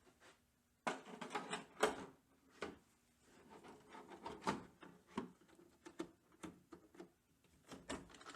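Handling noise: an irregular run of clicks, knocks and rustles as a newly unboxed RC monster truck and its packaging are handled, starting about a second in.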